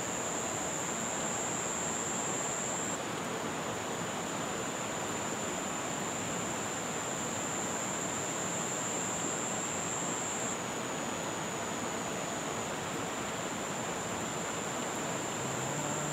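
Steady rush of flowing river water, with a continuous high insect trill over it.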